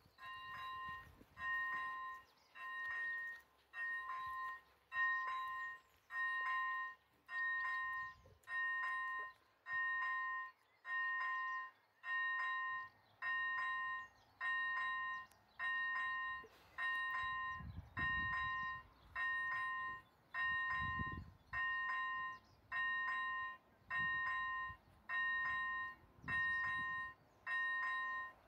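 ZV-01 electronic level-crossing warning bells ringing in a steady pulse about once a second, each pulse a quick two-tone electronic ringing: the crossing is activated, warning of an approaching train. Wind gusts on the microphone about two-thirds of the way through.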